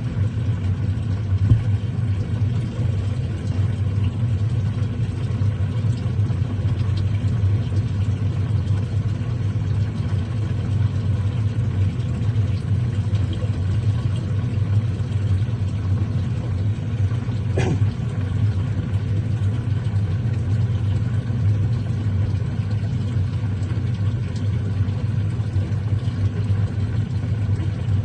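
Washing machine running on its wash cycle with a steady low hum. A single short sharp sound about eighteen seconds in.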